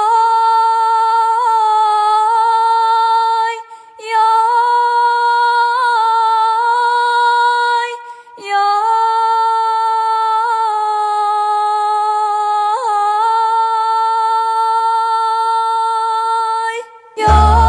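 A solo voice, unaccompanied, singing long held notes without words in three long phrases with short breaks between them. Near the end a deep low accompaniment comes in under it.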